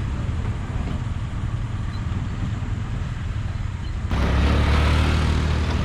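Road vehicle engines running with a steady low rumble; about four seconds in the sound turns abruptly louder and deeper.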